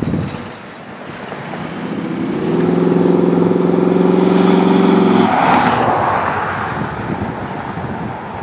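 Corvette's 385 stroker V8 driving toward the microphone: the engine note builds from about a second in and holds a steady, loud pitch for nearly three seconds, then breaks off and gives way to a brief rush of tyre and wind noise that fades.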